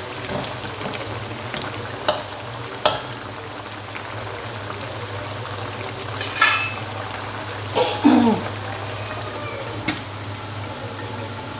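Taro simmering and sizzling in a watery sauce in an aluminium wok, with a steady low hum underneath. A metal spatula clicks and scrapes against the wok a few times, and near the end a stainless steel lid clanks onto it.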